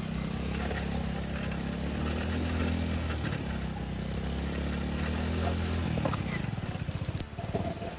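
Honda motorcycle engine running at a steady note; about six seconds in the steady tone gives way to a rougher, pulsing chug.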